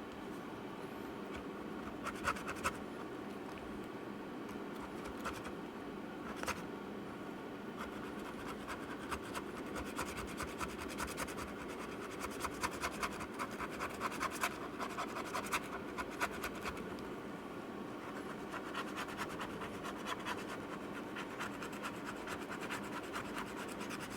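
A tool scraping old battery adhesive off the inside of a MacBook Pro's aluminium case, in runs of quick repeated strokes that scratch the metal, with a few sharper clicks in the first seconds.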